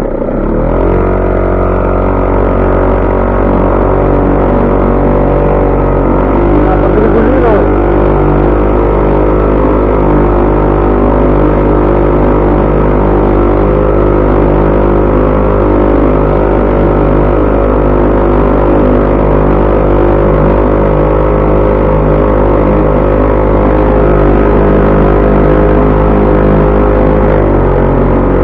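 HDX 3.6 hp outboard motor running steadily under way. Its pitch rises just after the start, shifts slightly about six seconds in, and drops a little near the end.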